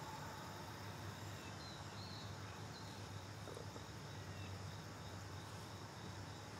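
Faint outdoor yard ambience: a steady low hum under a thin, steady high insect drone, with a few faint chirps about two seconds in.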